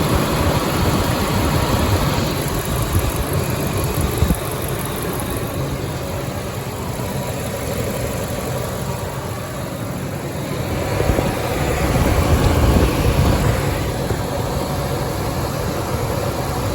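1998 Ford F-150's 4.6 L Triton V8 running steadily, swelling louder for a couple of seconds about two-thirds of the way through.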